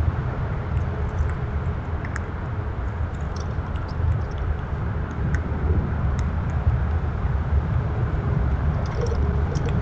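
Outdoor ambience: a steady low rumble with faint, scattered short high chirps and clicks.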